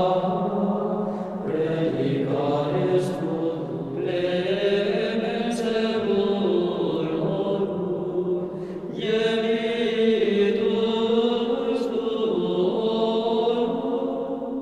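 Slow vocal chant: long held notes that slide gently in pitch, with no break.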